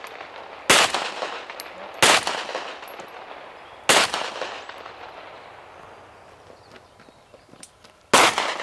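Four pistol shots: three over about three seconds, then a fourth after a pause of about four seconds, near the end. Each shot trails off in a short echo.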